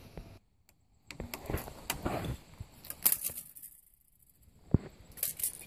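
Hand-work handling noise: intermittent rustling with scattered sharp clicks and taps, and short quiet gaps between them.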